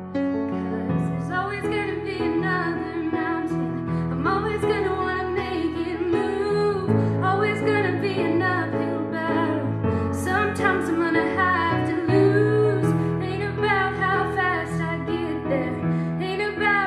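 A young woman singing a solo with an instrumental accompaniment; her voice glides between held notes over sustained low chords that change every second or two.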